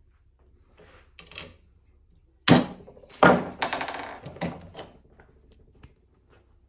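Metal clunks and clatter from a hammer and metal stand parts at a bench vise: two sharp knocks a little over two seconds in, the first the loudest, then about two seconds of rattling and small clicks as the parts are handled.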